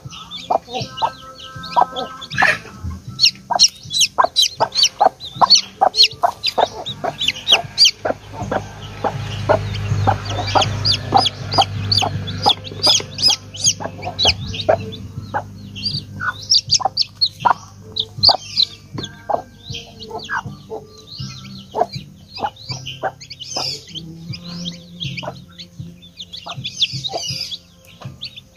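Newly hatched Rhode Island Red chicks peeping in a rapid, continuous run of short high calls, with a hen clucking lower among them.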